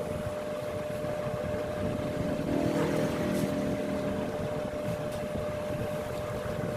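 Yamaha R15 single-cylinder engine running steadily, with a thin steady whine above the engine note and a slight swell in the middle.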